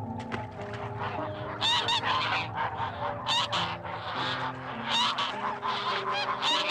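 A flock of large waterfowl honking, many overlapping calls with several loud ones rising above the rest, over held notes of soft background music.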